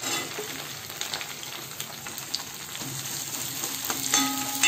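Chopped shallots sizzling in hot sesame oil with tempering spices in a kadai. A metal ladle scrapes and clinks against the pan as they are stirred, ringing briefly near the end.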